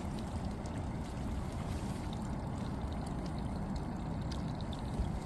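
Water trickling and sloshing on a small fishing boat, over a steady low rumble, with a few faint light clicks.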